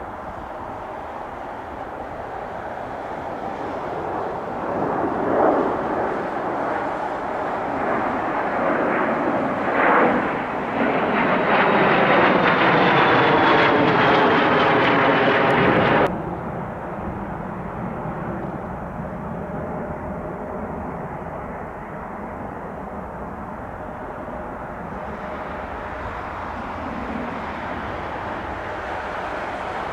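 Boeing 777-200LR's GE90 turbofan engines growing louder as the airliner comes in to land and passes close, with a whine that falls in pitch at its loudest. About halfway through the sound cuts off sharply to a lower, steady jet rumble.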